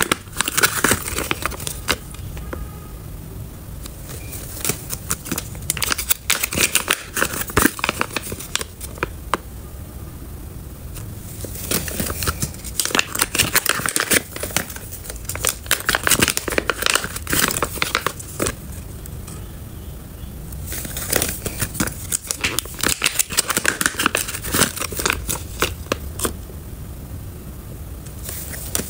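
Foil-lined zip-lock pouches crinkling as they are handled and flexed, in spells of a few seconds with short quieter pauses between.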